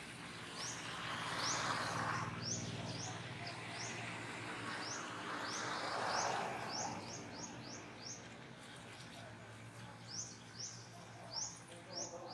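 A bird chirping over and over in short rising notes, two or three a second, with two swells of rustling noise about two and six seconds in.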